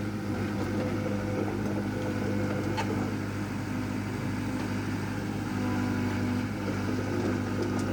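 Diesel engine of a Doosan S55V compact excavator, a replacement Yanmar, running at a steady speed with an even hum.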